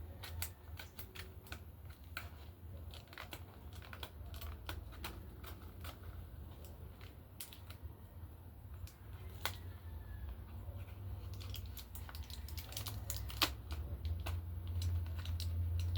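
Scattered small clicks and taps of hands handling packaging and pulling at tape, over a steady low hum.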